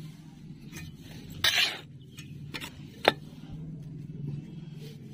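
Potting soil being worked with a metal hand trowel: a brief gritty scrape about one and a half seconds in, then a single sharp metallic clink of the trowel a little after three seconds.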